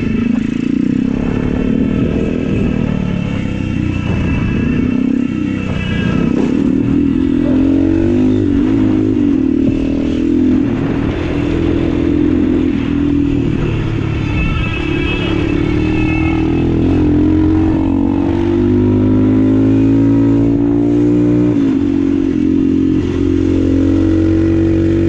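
Single-cylinder four-stroke Honda GX270 go-kart engine running under way, its speed rising and falling and climbing steadily through the second half.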